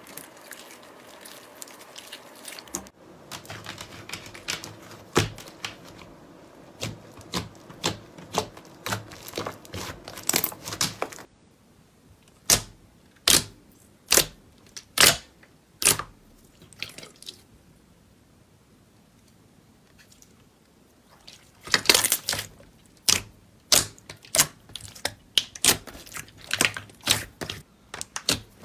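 Crisp clicks and crackles from slime and soap being pressed, poked and crushed for ASMR. The sounds change from clip to clip: a dense crackle, then single sharp snaps a little under a second apart, a few seconds of near quiet, then rapid clicking again.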